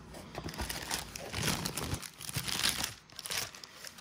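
Plastic packaging crinkling as it is handled around a boxed network switch: an irregular crackle, busiest in the middle.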